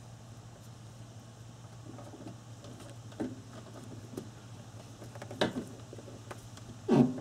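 Hands fitting a rubber fuel pump gasket around the fuel tank opening: a few short knocks and rustles of parts being handled, the loudest knock near the end, over a steady low hum.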